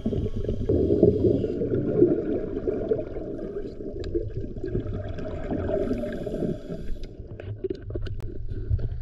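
Underwater gurgling and rumbling of water around a submerged action camera, with the tail of background music fading out in the first second or two. A few short splashy clicks near the end as the camera breaks the surface.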